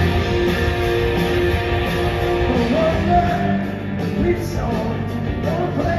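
Live rock band playing loudly in a large hall: electric guitars, bass and drums. A singing voice comes in about halfway through.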